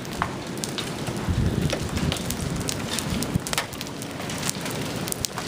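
Large hailstones striking hard surfaces as many irregular, sharp knocks over the steady hiss of a heavy downpour.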